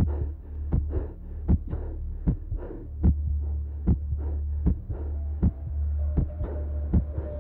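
Muffled dance music: a steady kick-drum beat, about two and a half beats a second, over a low bass hum, with a faint melody line coming in near the end.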